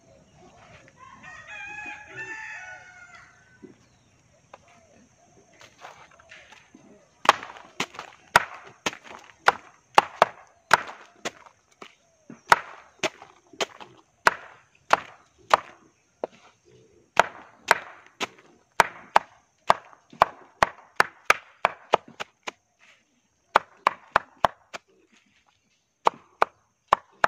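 A rooster crows once about a second in. Then a machete chops banana-stem pith on a board in a long run of sharp strokes, about two a second, which stops shortly before the end.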